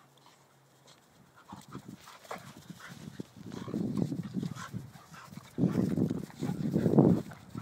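An Alapaha bulldog and a Staffordshire bull terrier play fighting, growling in rough bursts. The sound starts about a second and a half in and is loudest in two spells, one in the middle and one near the end.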